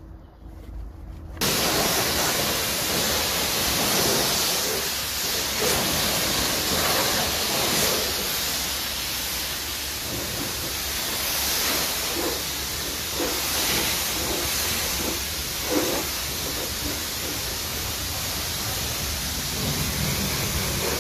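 A microfibre wheel brush rubbing on an alloy rim, then the high-pressure washer lance cutting in abruptly about a second and a half in. It sprays a steady hiss of water, rinsing shampoo off the car's paintwork.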